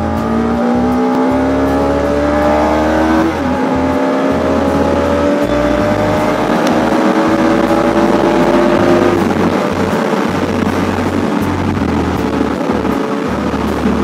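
Bajaj Pulsar RS200's single-cylinder engine pulling under acceleration while riding, its note rising steadily, dropping at a gear change about three seconds in, then climbing again. About nine seconds in the note settles into a steady cruise under a rush of wind noise.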